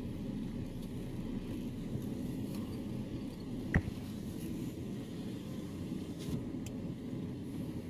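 Steady low road rumble of a car heard from inside the cabin as it moves along, with a single sharp click a little under four seconds in.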